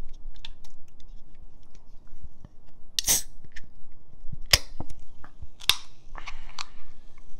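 Aluminium drinks can being opened close to the microphone: small fingernail clicks on the pull tab, then three sharp cracks, the loudest about three seconds in with a short hiss, as the tab is pried up and the can is opened.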